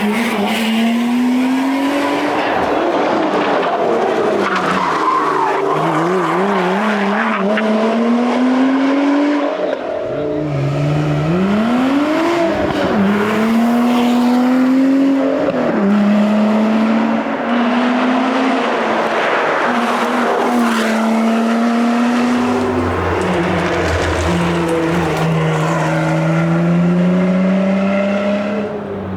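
Lotus Exige engine driven hard, its revs climbing again and again through the gears with quick upshifts. About ten seconds in the revs drop away, followed by short blips on downshifts, and then it pulls through the gears again.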